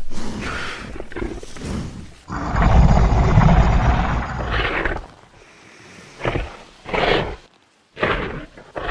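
Designed Tyrannosaurus rex vocal sound effects: a series of deep roars cut one after another. The longest and loudest starts about two seconds in and lasts nearly three seconds, followed by several shorter calls with brief silences between them.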